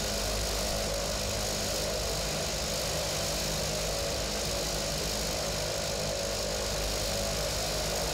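Cessna 208B Caravan's Pratt & Whitney PT6A turboprop engine and propeller running steadily at low taxi power, heard from inside the cockpit as an even hum with hiss.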